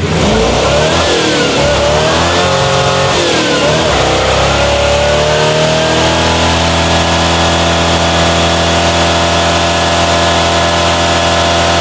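Mid-1950s Chevrolet pickup's engine revving hard in a burnout, the tyres screeching. The revs rise and fall for the first few seconds, then are held steady and high.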